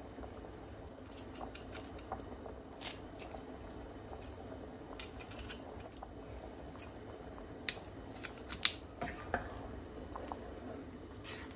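A pot of soup simmering with a low, steady bubbling, broken by a few sharp clicks that cluster and are loudest a little past the middle.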